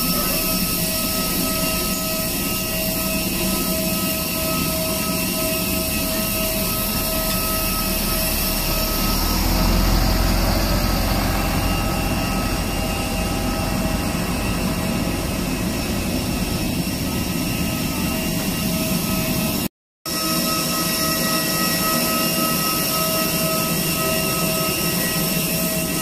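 Steady whine of jet aircraft on an airport apron: two high tones over a constant rushing noise. A low rumble swells briefly about ten seconds in, and the sound drops out for a moment about twenty seconds in.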